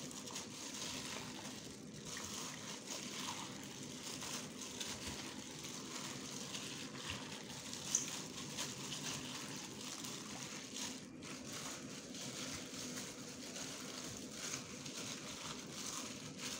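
A plastic-gloved hand mixing raw chicken pieces and onion in marinade in a stainless steel bowl: soft wet squishing and sloshing with the glove crinkling, and one sharper tick about halfway through.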